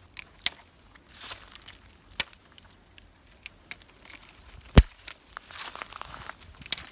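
Rustling and crinkling handling noises with scattered sharp clicks, and one loud sharp knock about five seconds in.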